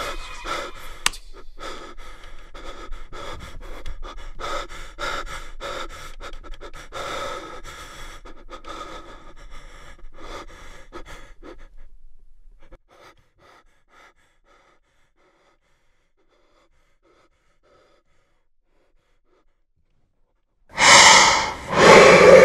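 A person panting rapidly and heavily, the breaths fading out after about twelve seconds, then silence. A sudden loud burst of sound comes near the end.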